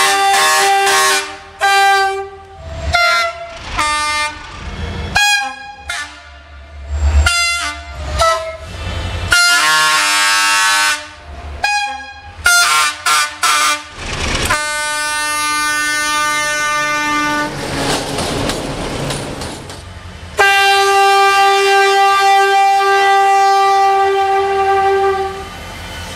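Romanian diesel locomotive horns sounding: many short blasts in quick succession at changing pitches, then a long blast of about three seconds and, after a short break, another long blast of about five seconds.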